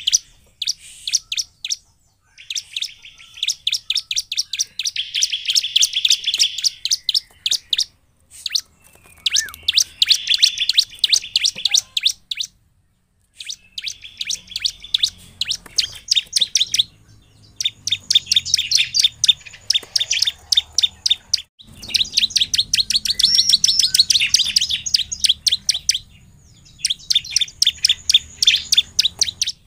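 Bar-winged prinia (ciblek) singing in full voice: long runs of rapid, sharp, high chirping notes in bursts of a few seconds, with brief pauses between them.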